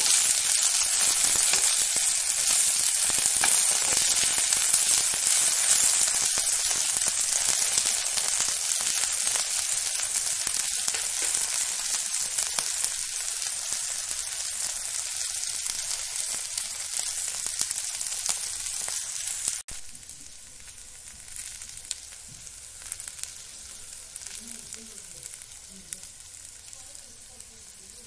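Sliced smoked chicken sausage and potatoes sizzling in oil in a frying pan. The sizzle eases off gradually, then drops suddenly to a much quieter level about twenty seconds in.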